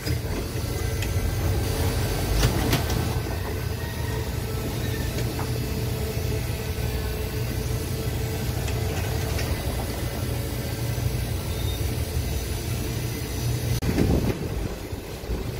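TECO Line streetcar running along its track, heard from inside the front cab: a steady low rumble with a constant hum. A sharp click comes about two and a half seconds in, and a louder clatter near the end.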